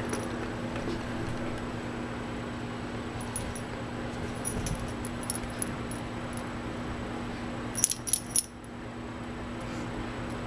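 Metal tags on a dog's collar jingling in short, scattered clusters as the dog moves and tugs at a plush toy, the loudest cluster about 8 seconds in. A steady low hum underneath.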